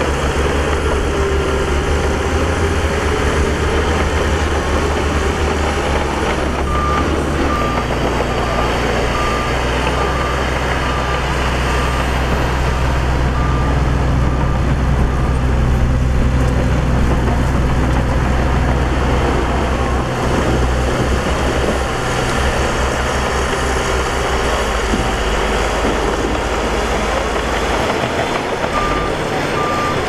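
Heavy diesel engines of a crawler bulldozer and a dump truck running steadily. A reversing alarm beeps in a regular series from about a quarter of the way in to the middle, and again near the end.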